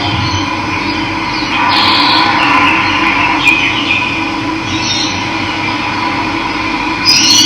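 Steady rush of running water, with birds chirping over it, busiest about two seconds in and with a rising call near the end.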